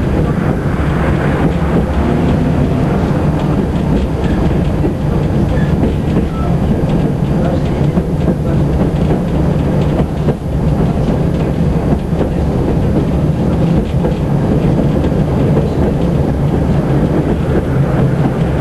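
Tatra T6 tram running at speed, heard from inside the passenger car: a steady, loud rumble of wheels on rail with many light clicks and rattles scattered through it.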